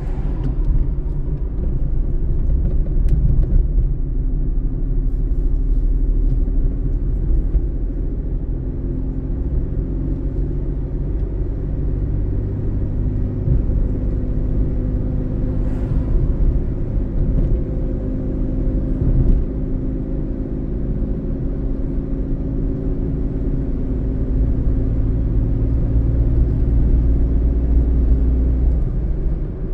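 Car being driven: a steady low rumble of engine and road noise, with engine tones that shift slightly in pitch as the speed changes.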